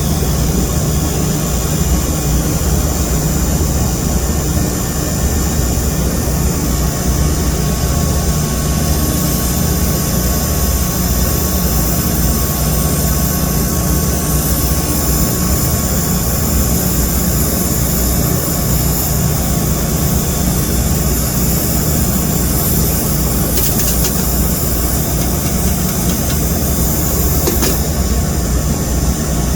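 Steady, loud machine drone with a heavy low rumble and a faint high hiss, unchanging throughout.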